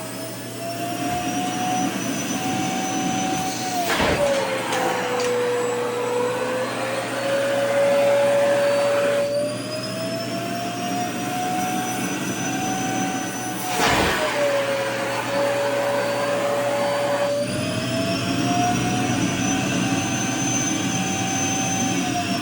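Vacuum cleaner running, its motor whine and air rush shifting in pitch as the load changes. The whine drops suddenly with a click about 4 and 14 seconds in, then climbs back, as fabric of a skirt is sucked against the nozzle and pulled free.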